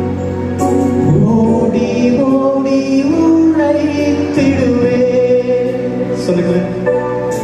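A man sings a Tamil Christian worship song into a handheld microphone, with long held, gliding notes over steady sustained accompaniment.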